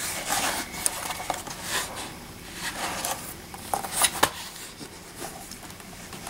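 Hands handling and turning over a closed HP Pavilion dv7 laptop: its case rubs and scrapes against hands and carpet in several swishes, with a few light clicks and knocks, the sharpest about four seconds in.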